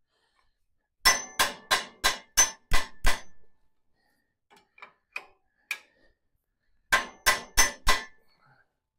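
Hammer blows on the steel mounting bracket of a Farmall 140's front cultivator disc. A quick run of seven ringing metal blows comes about a second in, a few lighter taps follow in the middle, and four more blows come near the end.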